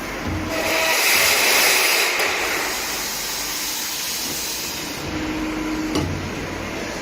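Automatic burr-free tube cutting machine running, with a loud hissing cutting noise that starts about half a second in and eases off after about five seconds, over a steady machine hum. A sharp click about six seconds in.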